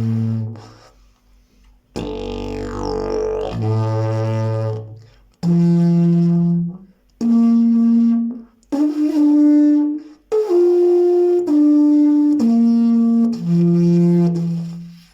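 Triple-slide fiberglass didgeridoo played as a series of separate held notes, each a second or so long. A low drone with shifting, gliding overtones comes first, then a run of notes that step up in pitch and back down again.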